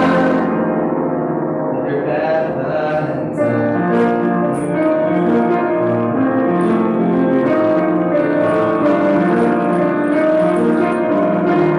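Solo piano music: slow held chords and a melody, the notes changing about once a second, a little louder from a few seconds in.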